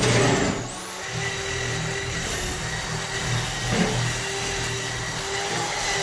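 Electronic background music: a high synth sweep dips and climbs back in the first second, then holds steady over a pulsing low beat, with a jet-like whoosh.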